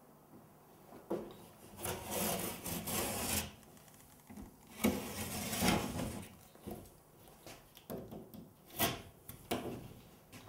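Utility knife slicing down through the paper backing of a sheet of drywall (sheetrock), two long scraping strokes, then a few sharp clicks near the end.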